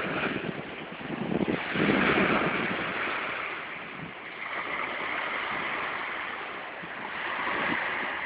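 Sea waves breaking and washing in as a steady rush, swelling to the loudest surge about two seconds in and again near the end.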